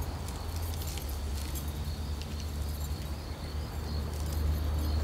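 Quiet night ambience: a steady low hum under a faint, steady high-pitched insect-like tone, with a few faint light clicks in the first second or so.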